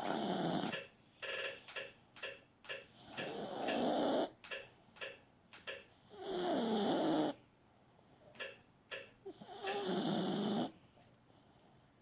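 Chihuahua snoring in its sleep: four long snores about three seconds apart, with short breaths between them, fading near the end.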